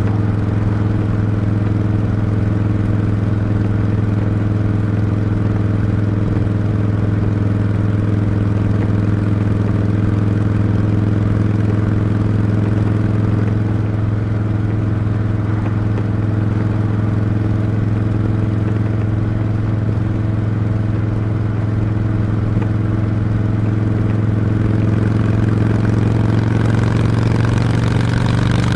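Harley-Davidson V-twin motorcycle engine and exhaust running at a steady cruise while being ridden, the engine note rising a little near the end as it picks up speed.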